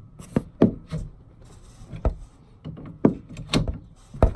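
Pliers working a plastic plug off a camper toilet's water line fitting: a series of sharp knocks and clicks, about six clear strikes at uneven intervals.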